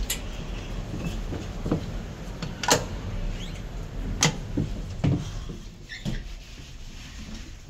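A few sharp clicks and knocks about a second apart: shoes stepping on the hard floor of a Fuji elevator car, and a foot pressing one of its metal foot-pedal buttons, the door-close pedal, about four seconds in. A low steady hum lies underneath.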